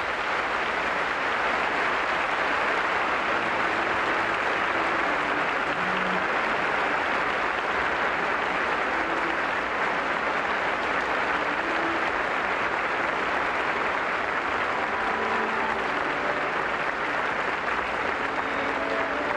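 Theatre audience applauding steadily, a dense sustained clapping.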